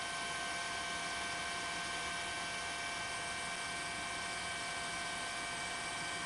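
Helicopter turbine and gearbox whine heard from inside the cabin: a steady drone of several constant high tones over an even hiss.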